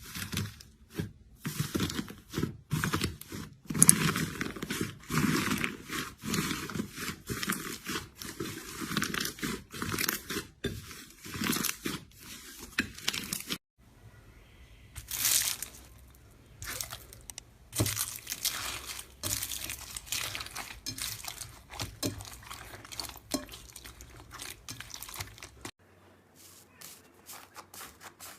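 Slime being squeezed and pressed by hand, giving dense crackling and popping clicks. Just under halfway through there is a sudden cut, after which the clicks come sparser.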